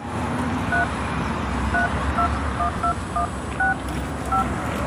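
Touch-tone keypad beeps of a mobile phone as a number is dialed: eight short two-tone beeps at an uneven pace, over a steady low background rumble.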